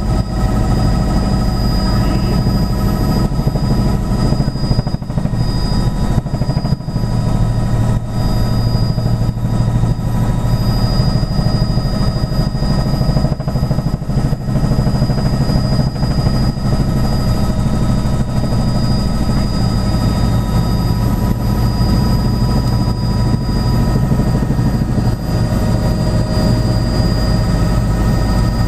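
Tour helicopter's engine and rotor running steadily in flight, heard from inside the cabin: a loud, constant low drone with a steady high whine over it.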